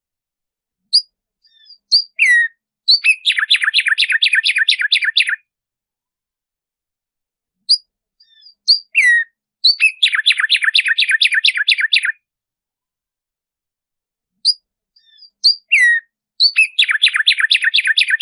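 Black-striped sparrow singing three times. Each song opens with a few separate high notes, then runs into a fast series of repeated notes, about five a second, for about two and a half seconds. The last song is still going at the end.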